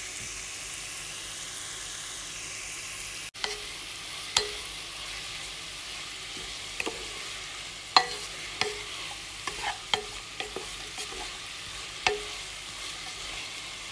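Sliced onions, garlic, ginger and green chilli sizzling steadily in hot coconut oil in a nonstick pan while being sautéed with a wooden spatula. Scattered sharp taps of the spatula against the pan come more often in the second half.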